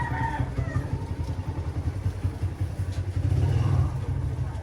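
An engine idling steadily, a rapid low pulse that goes on without a break.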